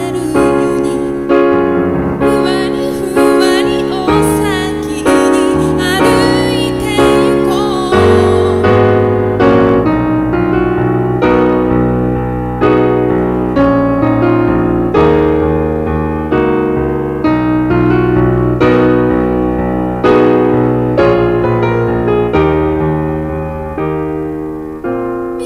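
Digital piano played live in steady chords, a new chord struck about once a second and left to ring. A woman's voice sings over it for the first several seconds, then the piano carries on alone.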